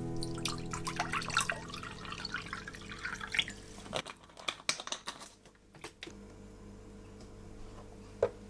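Water poured from a plastic bottle into a glass, splashing and trickling for about three and a half seconds, followed by a few light knocks.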